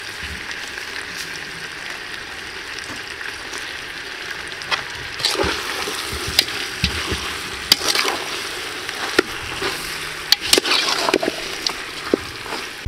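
A steady hiss as seasoning granules pour into a large aluminium pot of chicken wings, then a metal ladle and spatula stirring the wings, with repeated sharp clacks and scrapes of metal on the pot through the second half.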